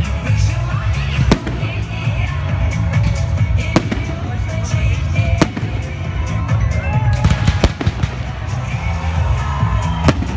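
Aerial firework shells bursting: a sharp bang every two seconds or so, with smaller pops and crackles between, over loud music.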